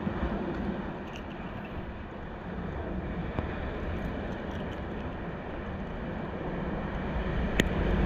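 Steady low rumble of surf and wind on the microphone, with one sharp click near the end.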